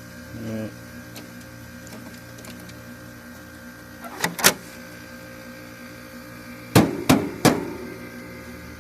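Carrier Siesta window air conditioner running with a steady hum while its fan does not turn, the fan having failed. A brief buzz comes just after the start, two sharp clicks about four seconds in, and three loud knocks near the end.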